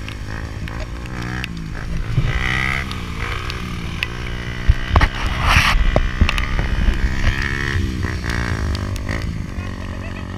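Motorcycle engines revving while riding, the pitch rising and falling several times, with a brief rush of noise a little past halfway.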